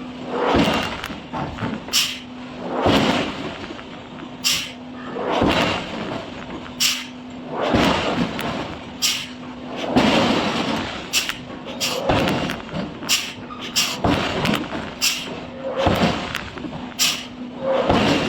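Repeated heavy hammer blows on steel in a forge, about one a second, each with a short ring, over a steady machine hum.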